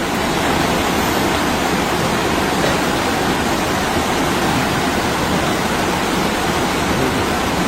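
Steady rush of floodwater, an even, unbroken noise of fast-moving water that does not let up.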